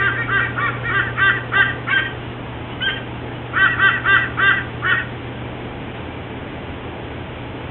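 White-bellied sea eagle calling: rapid goose-like notes, about four a second, in two bouts with a single note between them; the calling stops about five seconds in. A low steady hum and hiss run underneath.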